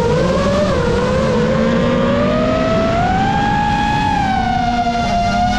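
FPV drone's electric motors whining, the pitch wavering and gliding with throttle changes. The whine climbs steadily over about three seconds, then holds high.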